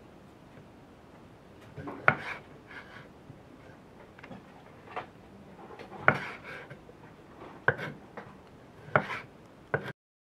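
Handling of hard objects: about five sharp knocks at uneven gaps, with lighter clatter and rubbing or scraping between them.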